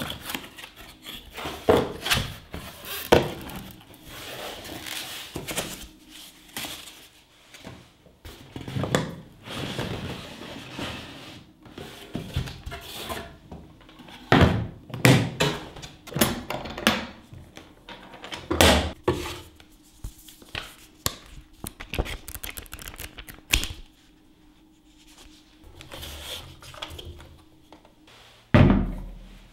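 Unboxing and handling noises: a cardboard box being opened and scraped, then an aluminium-framed carry case set down on a wooden workbench and its latch and lid opened. Irregular knocks, clicks and scuffs, with several louder thunks, the loudest near the end.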